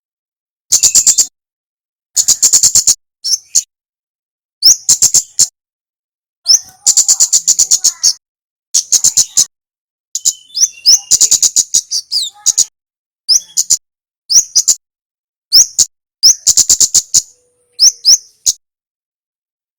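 Male kemade (kemlade merah) songbird calling: bursts of rapid, high, sharp chip notes, each burst lasting under a second or so, repeated over and over with short silent gaps between them.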